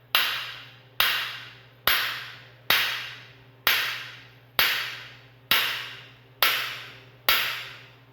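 A hammer strikes a cam bearing installer bar, driving a cam bearing into the block of a 454 V8. About nine steady blows land roughly one a second, each with a brief ring.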